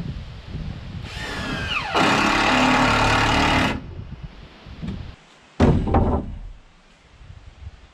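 A power saw cutting wood: its pitch drops as the blade bites, then it cuts steadily and stops abruptly. A few seconds later comes a single sharp knock.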